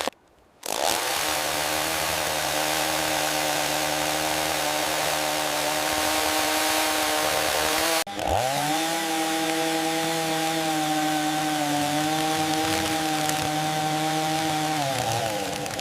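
Small chainsaw running at steady high speed as it cuts into a moss-covered log. The sound drops out for a moment at the very start, breaks off abruptly about eight seconds in, picks back up to speed, and the motor note falls away near the end.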